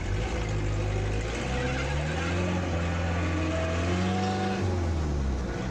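1948 Bedford bus engine heard from inside the cab, pulling away under load: the revs climb about two seconds in, hold steady, then drop off near the end.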